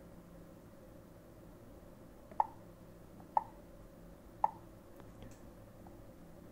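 Three short, quiet clicks about a second apart, each from a finger pressing a settings switch on a TomTom Start 62 satnav's resistive touchscreen.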